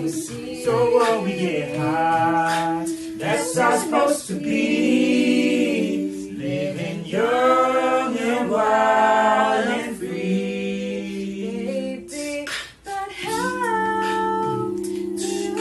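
A cappella group singing in several-part harmony, with held chords under a moving melody and a brief break in the sound about three quarters of the way through.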